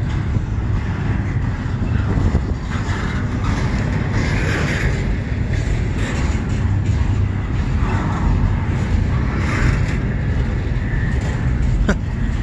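Double-stack intermodal freight train rolling slowly past, its wheels on the rails making a steady low rumble. Near the end a single sharp bang comes as slack runs in and out between the cars.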